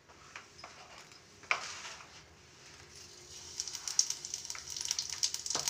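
Cumin seeds dropped into hot mustard oil in a kadhai, starting to sizzle and crackle. There is a light tap about a second and a half in, then the crackling builds and grows steadily louder over the last few seconds.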